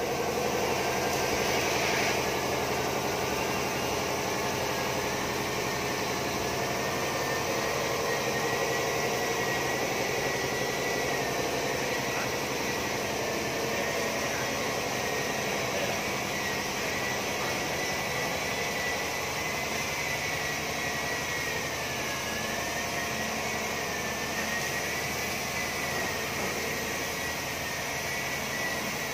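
Steady background hum and hiss with a faint, high whine that wavers slowly in pitch, like machinery running somewhere in a workshop.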